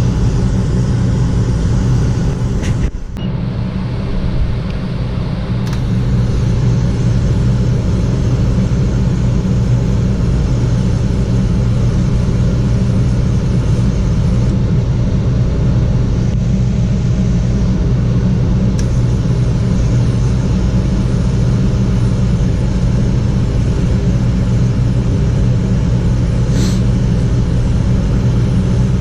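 Gas furnace running with a steady low hum, which dips briefly about three seconds in.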